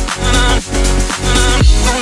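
Background electronic dance music: a steady kick drum about twice a second under sustained synth chords, with no singing.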